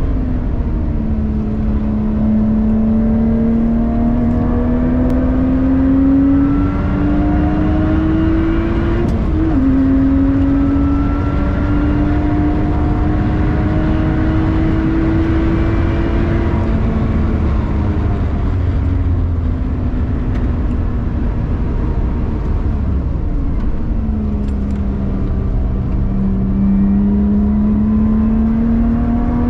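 Lotus Evora 410 Sport's supercharged 3.5-litre V6 heard from inside the cabin under hard acceleration on track: the engine note climbs through the revs, drops sharply at an upshift from third to fourth about nine seconds in, and pulls up again. Later the revs fall as the car brakes and shifts down for a corner, then climb again near the end, over a steady rumble of road and tyre noise.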